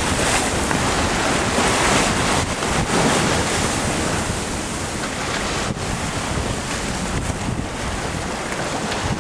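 Wind buffeting the microphone over the steady rush of sea water around a sailing boat under way.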